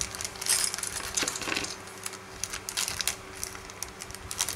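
Small plastic zip bag crinkling as it is opened and handled, with small white-metal miniature parts clinking inside it. Many short crackles and clicks, busiest in the first two seconds.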